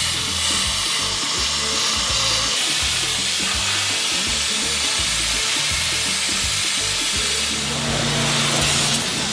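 Wet sandblaster spraying abrasive and water onto steel plates: a steady, loud hiss of the blast stream striking the metal.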